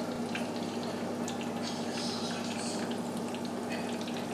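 Chicken wings deep-frying in a pot of oil, the oil bubbling steadily with irregular small crackles and pops, over a steady low hum.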